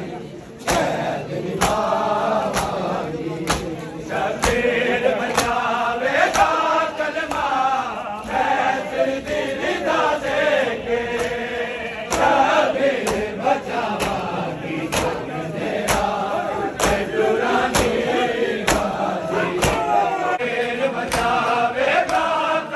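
Men chanting a Shia lament (nauha) together while beating their bare chests in unison (matam), the sharp slaps landing about once a second.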